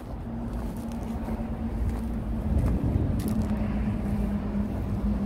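A motor engine running steadily, a low drone with one held hum that drops slightly in pitch about three and a half seconds in and slowly grows louder, with a few light clicks over it.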